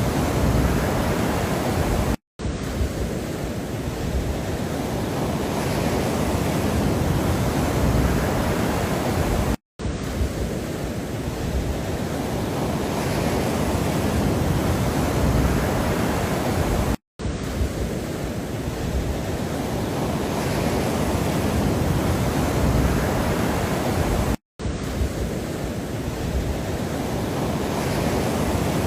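Steady rushing background noise, heaviest in the low end, with a faint swell in the upper part at the start of each stretch. It cuts to silence for a split second four times, about every seven and a half seconds, like a short loop restarting.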